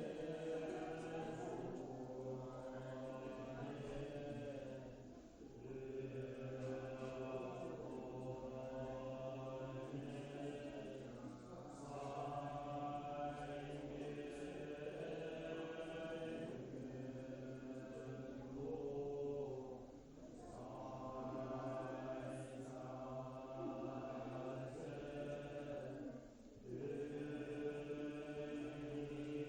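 Voices chanting a mantra in long held tones, with brief pauses for breath every several seconds.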